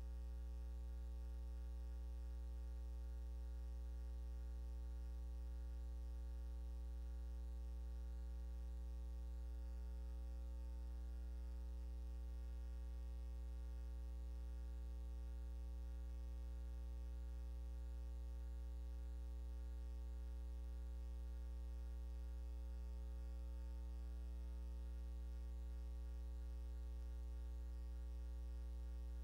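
Steady electrical mains hum, a low drone with a ladder of higher overtones and faint hiss, unchanging throughout: the noise floor of a silent film's transfer, with no other sound.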